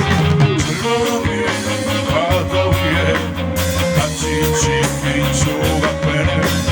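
A rock band playing its own song live, in a stretch without sung lyrics: sustained, gliding lead lines over bass, drums and cymbals.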